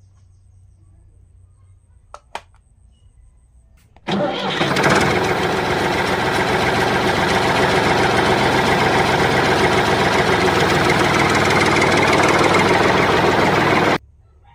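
Diesel engine starting up and running steadily for about ten seconds, then cutting off suddenly. Two light knocks come about two seconds in, before it starts.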